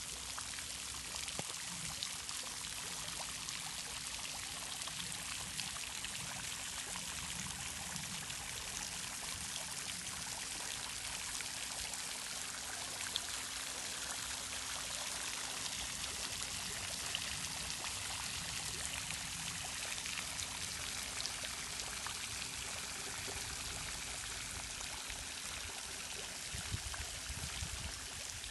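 Running water flowing steadily, with a faint low steady hum beneath it.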